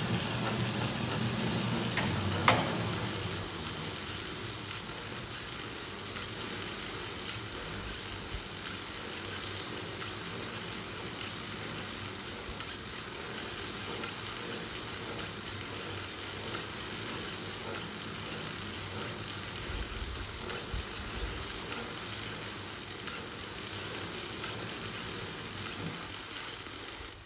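Pre-stretch turntable pallet wrapper running: a steady hiss of stretch film feeding off the carriage over a low motor hum as the turntable turns the pallet, with one sharp click about two and a half seconds in.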